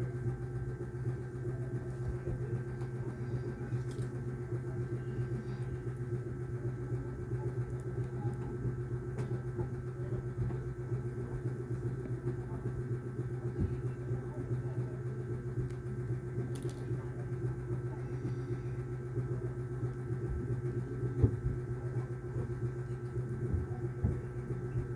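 Steady running hum of a small machine, a low drone with a thin higher whine, unchanging throughout, with a few faint clicks now and then.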